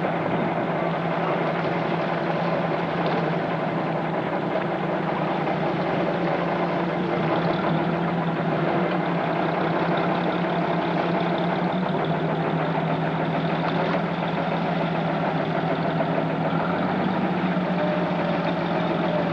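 Boat engine running steadily at a constant, low, even speed, a continuous hum.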